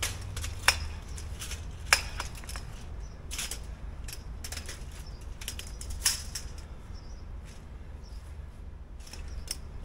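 Scattered light clicks and clinks, three of them sharper and louder, over a steady low rumble.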